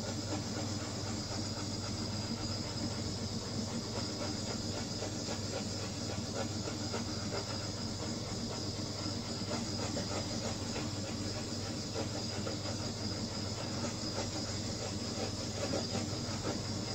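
Handheld heat tool running steadily with a hiss and a low hum, passed over wet acrylic paint to pop surface air bubbles.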